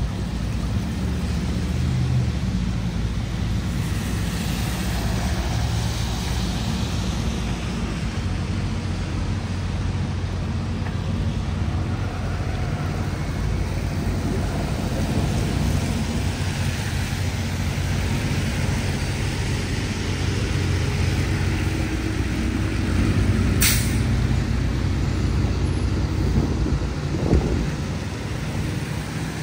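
City street traffic: a steady rumble of passing vehicles, with one brief high hiss about three-quarters of the way through.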